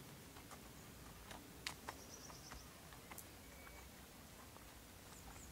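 Faint, irregular hoof steps of a Friesian horse walking on sand, with a short high bird trill about two seconds in.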